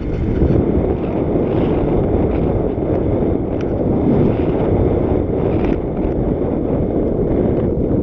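Wind buffeting the microphone of a mountain bike's on-board camera while riding, a steady low rumble mixed with the tyres rolling over a dirt and gravel trail, with a few faint rattles.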